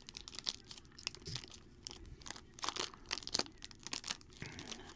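Foil wrapper of a Topps Tier One card pack crinkling as fingers pick at it and pull it, in irregular crackles that are loudest a little past halfway. The pack is stubborn and won't come open.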